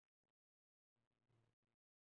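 Near silence, with a few very faint, brief sounds, the strongest about a second in.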